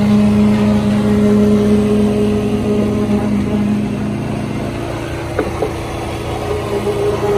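Engine-driven concrete poker vibrator running with a steady hum, its shaft in the fresh concrete of a beam form. The hum weakens about halfway through and comes back near the end, with a couple of short knocks just after the middle.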